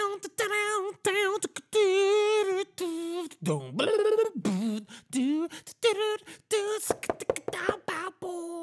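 A person's voice imitating rock music by mouth: short wavering sung notes with a quick vibrato, broken up by clicks and pops.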